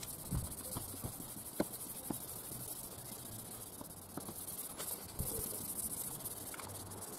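A Rain-X restoration kit's polishing pad rubbed by hand over a wet plastic headlight lens, a steady high hiss with scattered small clicks.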